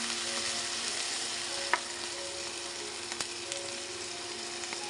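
Chicken pieces sizzling steadily as they fry in oil with garlic and onion in a nonstick pan. A couple of sharp clicks cut through, one loud click nearly two seconds in and a fainter one about three seconds in.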